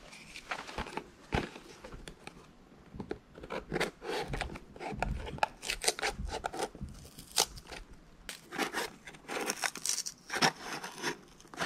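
Small scissors cutting through the sticker seal on a small cardboard box, with the box handled against the blade: an irregular run of quiet snips, clicks and scrapes.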